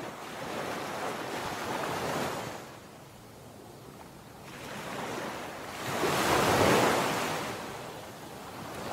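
Sea waves washing in, in two swells of surf: a smaller one at the start and a louder one about two-thirds of the way through that then dies away.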